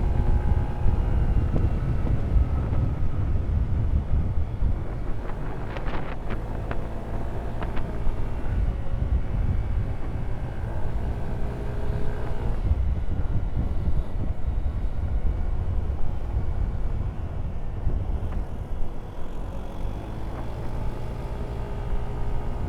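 Motorcycle engine running under changing throttle while riding, its pitch slowly rising and falling, over heavy wind rumble on the microphone. A few short clicks are heard about six to eight seconds in.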